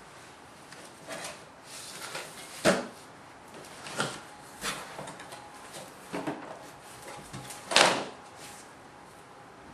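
Cardboard shipping box being opened by hand: its flaps are pulled back and the cardboard rubs and scrapes. The sounds come in a series of short scrapes and knocks, the loudest and longest near the end.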